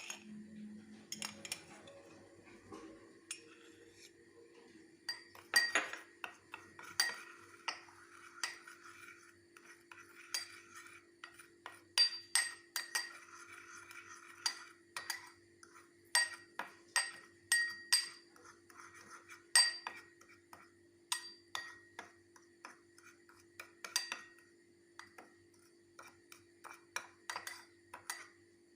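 A spoon repeatedly clinking and tapping against a dish, irregular strikes with a short ring, as when ingredients are stirred and mixed, over a steady low hum.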